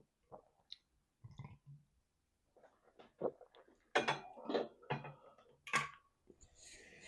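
Close-miked chewing and mouth clicks of a person eating, irregular and loudest between about four and six seconds in. Near the end, a breathy rush of air blown straight into the microphone.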